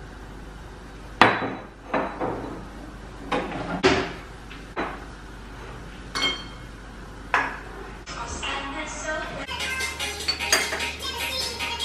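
Kitchenware being set down and handled on a countertop: a series of separate knocks and clinks from a mixing bowl, pot and spatula, about eight in the first seven seconds, the loudest about a second in. Background music comes in near the end.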